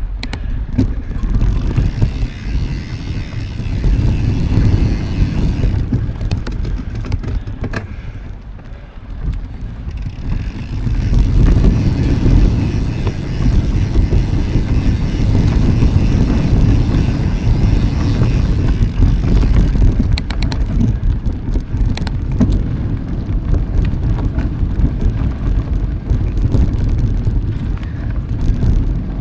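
Mountain bike being ridden: wind rumbling on the microphone with tyre and ride noise, a steady low noise that eases for a couple of seconds about eight seconds in, with a few light knocks about two-thirds of the way through.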